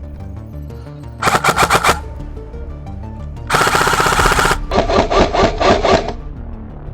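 Airsoft guns firing three short full-auto bursts of rapid shots, each about a second long, the last one duller. Background music runs underneath.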